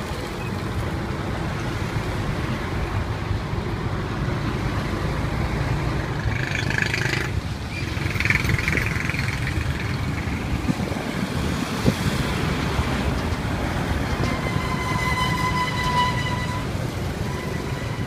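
Steady low outdoor rumble, with a brighter swell about a third of the way in and a held high tone lasting a couple of seconds near the end.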